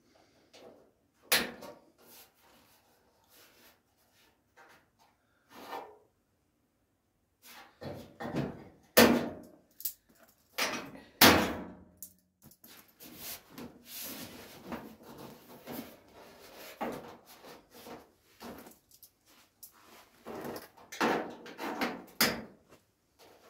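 Irregular clunks, knocks and scraping of a steel front wing and the clamps holding it as the panel is positioned on a Ford Escort Mk1 shell. Three sharp knocks stand out, about a second in and twice in the middle, followed by a spell of lighter rattling and rubbing.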